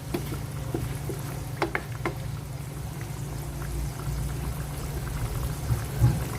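Soy sauce poured by the scoop into a pot of simmering chicken liver and gizzards. A steady low hum runs underneath, and a few light knocks come around two seconds in and again near the end.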